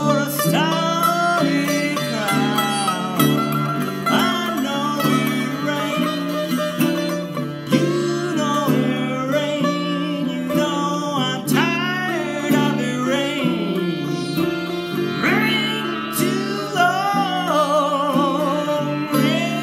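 Sitar played with a metal slide, its notes gliding and wavering, over strummed baritone ukulele chords, with a man singing.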